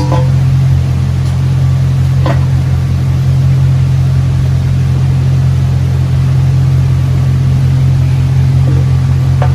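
Steady, loud low machine hum, with a single sharp metallic click about two seconds in and a fainter one about a second in.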